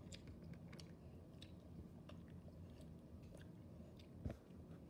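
A person quietly chewing a soft gummy candy, with faint scattered mouth clicks, and one louder knock a little over four seconds in.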